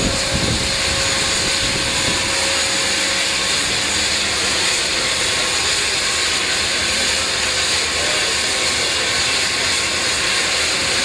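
Seaplane's engine and propeller running steadily, a constant loud drone with a faint steady tone in it.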